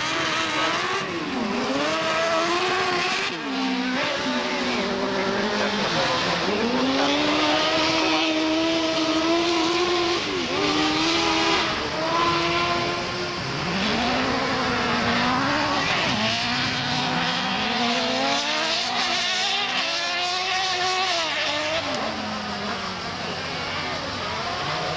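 Autocross buggies racing on a dirt track, their engines revving hard and dropping back again and again through gear changes and corners, several cars overlapping.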